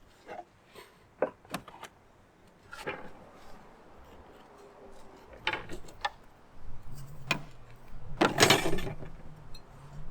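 Scattered knocks and clicks of scrap-wood pieces and tools being handled, with a louder scraping noise lasting about half a second around eight seconds in. A faint low hum sets in about seven seconds in.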